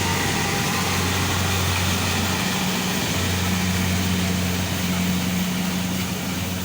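Rice harvester's engine running with a steady low drone and the clatter of the machine over it.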